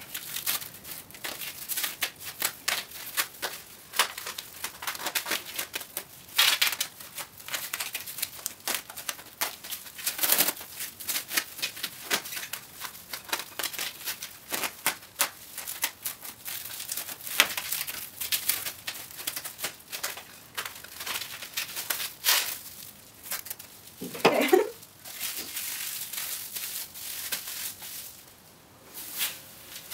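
Plastic cling film crinkling and crackling as it is pulled off the roll, wrapped around the belly and pressed smooth by hand, in dense, irregular crackles.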